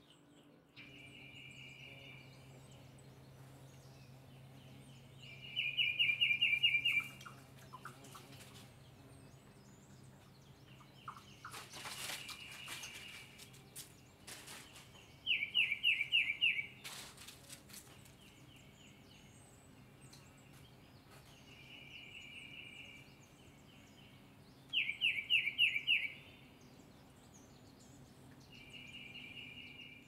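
Songbird singing: a loud phrase of quick repeated downslurred notes about every ten seconds, with softer trilled phrases in between.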